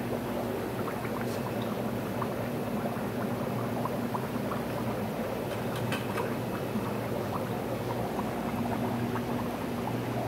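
Steady bubbling and trickling of aquarium water with a low electrical hum from the tank filters and pumps. Water from a fish bag splashes into the tank near the start.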